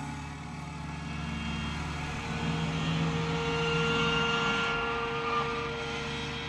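Sampled bowed-zither effects patch played from a keyboard: held, droning tones layered into a slowly shifting chord. It swells louder in the middle and fades out near the end.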